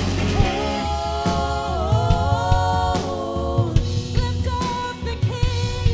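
Live worship band music: a woman sings the lead melody into a microphone over a drum kit and bass with a steady beat.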